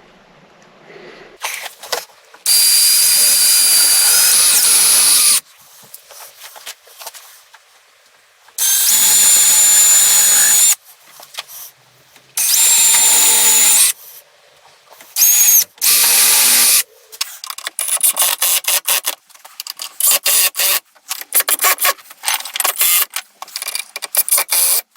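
Power drill driving screws into wood: three runs of about two to three seconds each with a steady motor whine, then a quick string of short trigger bursts as screws are run in and seated.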